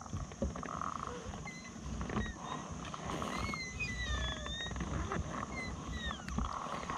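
Birds calling: a run of short whistled notes that slide up and down in pitch, over a low rumble and a few light knocks.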